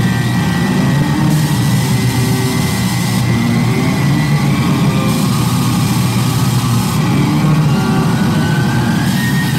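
Live electronic noise music played loud through a PA: a dense, unbroken low rumble with a thin high whine above it that slowly rises in pitch.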